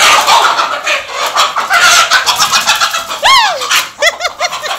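A domestic chicken: loud scuffling and rustling at first, then one long falling squawk a little after three seconds, and a quick run of short clucks near the end.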